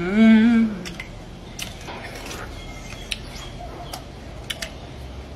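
A short voiced hum from a person eating, its pitch rising and then falling, in the first second. Then faint scattered clicks and crunches of people biting and chewing jocotes.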